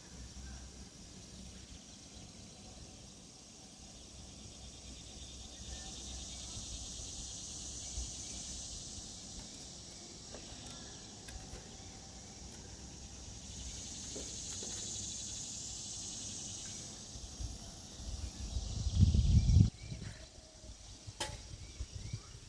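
A chorus of insects buzzing high and steady, swelling louder twice and easing back. About nineteen seconds in comes a brief loud low rumble, and a sharp click a couple of seconds later.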